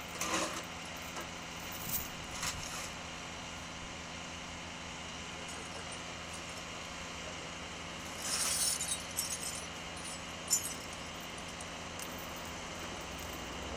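Push broom and shovel scraping crash debris off an icy road, with small bits clinking, in short strokes near the start, around two seconds in and in a cluster past the middle, over a steady traffic hum. A car's engine rumbles close near the end.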